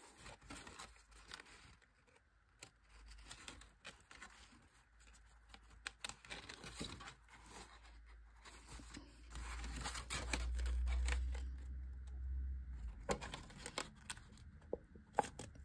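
Thick kraft cardstock being handled: light rustling, crinkling and small scattered clicks as paper tabs are worked through slots. A low rumble runs for a few seconds in the middle.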